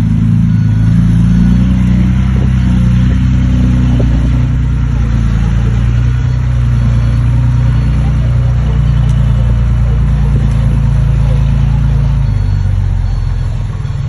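Diesel engine of a heavy earthmoving machine running steadily with a deep, even drone, dropping slightly in pitch and level about twelve seconds in.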